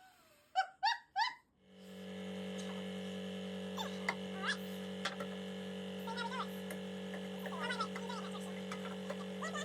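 A brief laugh or voice, then a steady hum with several fixed tones sets in under two seconds in and holds, with faint short chirps over it.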